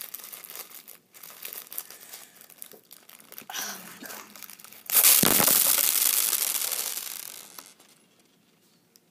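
Plastic bag of small yellow BBs crinkling in the hands, then about five seconds in a sudden loud rush as the whole load of BBs spills out and scatters, dying away over about three seconds.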